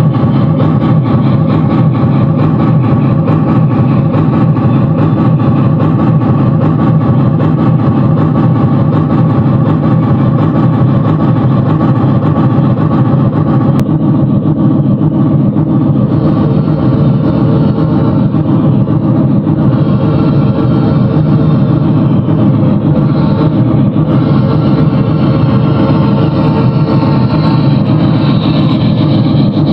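Steam locomotive No. 2101, a Reading T-1 class 4-8-4, running with a loud, continuous rumble that holds steady throughout.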